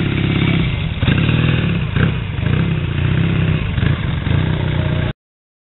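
Classic car and motorcycle engines running at low revs as the vehicles pull away one after another, the pitch rising and falling with the throttle. The sound cuts off suddenly about five seconds in.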